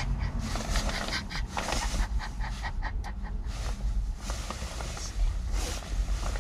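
Quick breathy puffs like panting, several a second, over a steady low rumble in a van's cabin.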